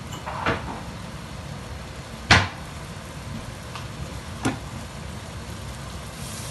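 Four short, sharp knocks and clunks of kitchen handling, the loudest about two seconds in, over a steady low hum.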